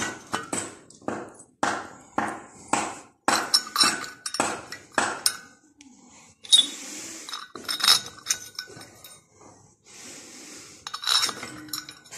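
Metal tools and engine parts clinking and knocking together as an Antor engine is worked on. The clinks come about two a second for the first five seconds, then more sparsely, with two short stretches of hiss.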